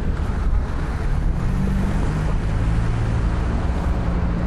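Street traffic noise: a steady low rumble, with a vehicle engine's low hum setting in about a second and a half in and holding on.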